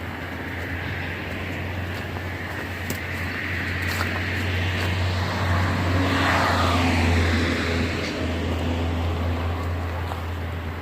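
A vehicle passing by. Its noise builds to a peak about seven seconds in and then fades, falling in pitch as it goes, over a steady low hum.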